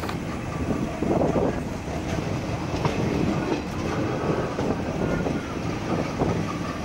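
Ernakulam–Okha Express passenger train running along the track: a steady rumble of wheels on rail with occasional clacks.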